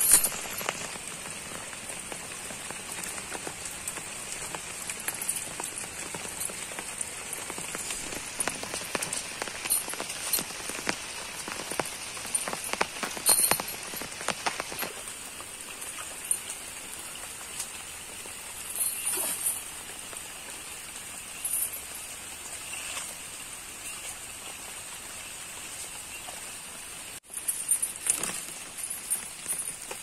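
Steady rain falling on leaves, grass and water: a constant hiss with fine pattering, and a few louder spatters in the middle and near the end.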